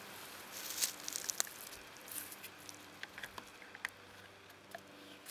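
Soft rustling with scattered light clicks and crackles over a faint steady hiss, a person shifting and handling things; the loudest clicks come about a second in.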